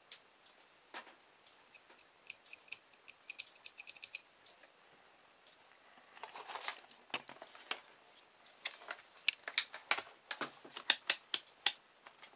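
Scattered light clicks and taps of handling on a workbench. In the last few seconds comes a brisk run of sharp clicks as a digital multimeter is handled and its rotary range dial is turned.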